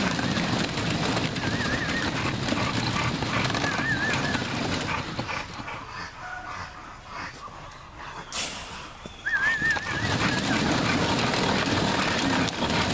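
Dog trotter treadmill rumbling and clattering under a bulldog's trotting paws. It goes quiet from about five seconds in while the dog stands still, and picks up again about ten seconds in. A bird's short warbling call sounds three times over it.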